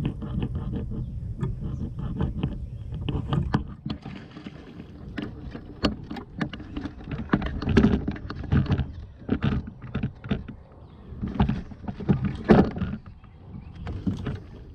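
Irregular knocks and clatter over a low rumble.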